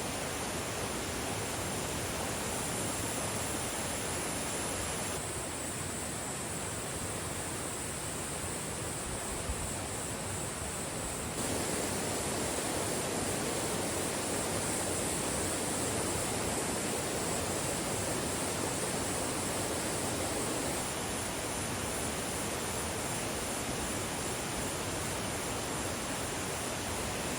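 Mountain stream rushing steadily over rocks, with a high, steady chorus of insects above it. The sound shifts abruptly a few times: about 5 s in, about 11 s in and about 21 s in.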